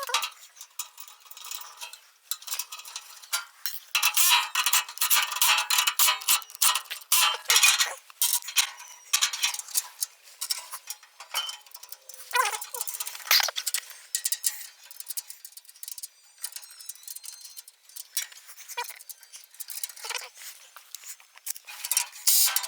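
Metal parts and tools clinking and knocking against each other in quick irregular clicks, busiest a few seconds in, while a machine is being put together by hand.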